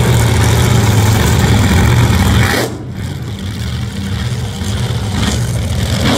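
Alcohol-burning nostalgia drag race car engines idling with a steady, rough rumble. The sound drops abruptly a little under halfway through and carries on quieter.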